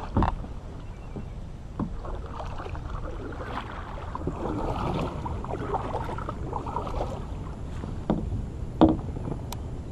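Water splashing and lapping around a kayak, with a few knocks on the hull, the loudest near the end.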